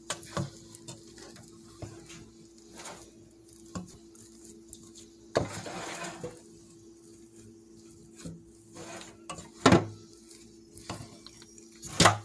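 Wooden spoon stirring and mashing potatoes in a stainless steel pot, scraping through the mash with scattered knocks against the pot's side. There is a longer scrape about halfway through and two sharp loud knocks near the end.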